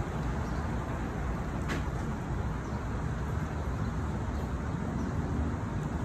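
Steady rumble of road traffic, with one brief sharp click or chirp a little under two seconds in.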